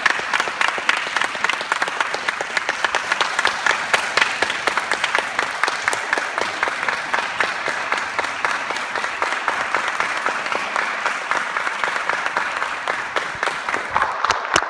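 Audience applauding: a dense patter of many hands clapping that thins to scattered separate claps near the end.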